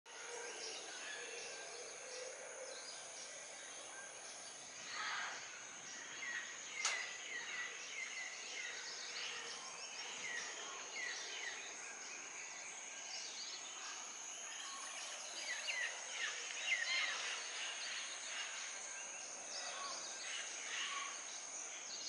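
Tropical rainforest dawn chorus: many birds chirping and whistling over a steady high-pitched insect drone, with one sharp click about seven seconds in.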